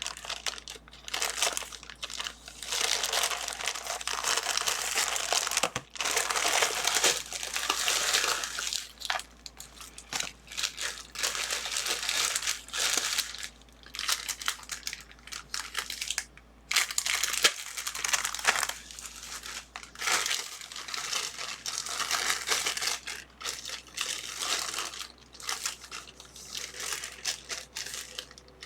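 Plastic parcel packaging crinkling and rustling in irregular bursts as a small package is unwrapped by hand.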